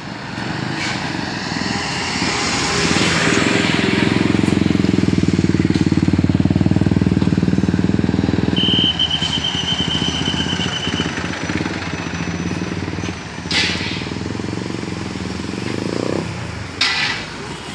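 Road traffic passing close by: vehicle engines with a fast, even throb, loudest in the first half, then easing. A short high whistle-like tone sounds about nine seconds in, and two sharp knocks come near the end.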